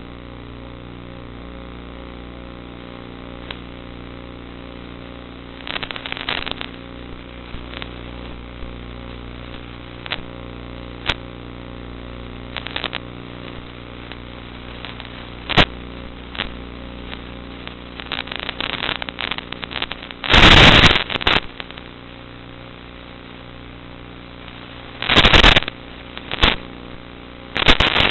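The motor of an FPV Zagi flying-wing model plane runs with a steady hum. Over it come scattered crackles and clicks, and two loud bursts of rushing noise in the second half.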